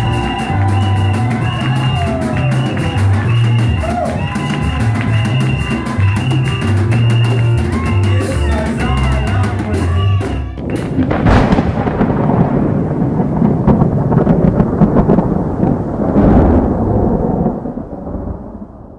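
Live church band music for dancing, keyboard over a drum kit and a pulsing bass line. About ten seconds in it cuts abruptly to a loud, noisy, rumbling logo sound effect that fades out near the end.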